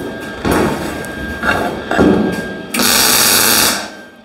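MIG welder tack-welding a sheet metal panel to its frame: crackling bursts of the arc, the longest about a second, near the end.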